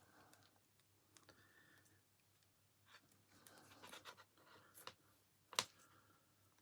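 Near silence with faint scratching and small clicks of wires and plastic parts being handled, and one sharper click about five and a half seconds in.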